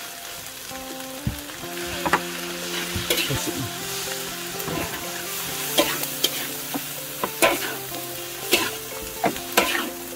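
A spatula scraping and knocking against a wok as chopped greens are stir-fried, over a steady sizzle. The scrapes and knocks come at irregular intervals, about one every second or two.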